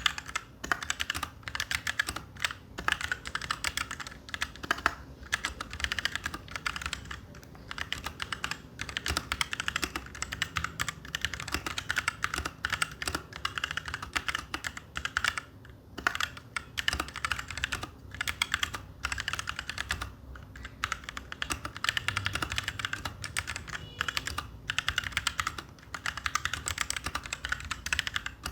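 Royal Kludge RK61 mechanical keyboard with brown (tactile) switches being typed on continuously: a dense, irregular stream of key clacks.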